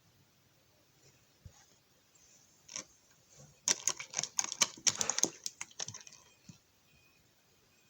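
A quick run of sharp clicks and taps, about a dozen in two seconds, like small hard objects knocking or rattling together.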